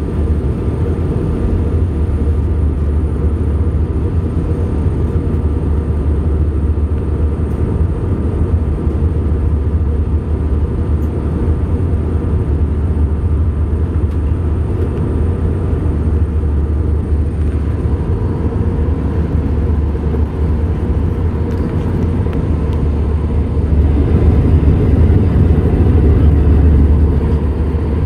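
Jet airliner cabin noise in flight: a steady low rumble of the engines and airflow heard from a window seat over the wing, with a faint steady whine. It grows slightly louder about 24 seconds in and eases back near the end.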